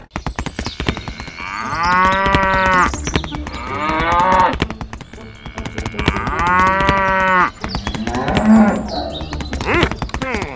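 Cow mooing: two long moos about four seconds apart, with fainter calls between them, over a fast rattle of clicks.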